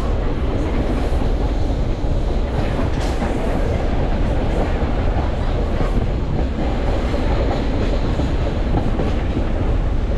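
Vintage BMT AB Standard subway car running along open track, heard from an open window: a steady heavy rumble of steel wheels on rail, with faint clicks as the wheels cross rail joints.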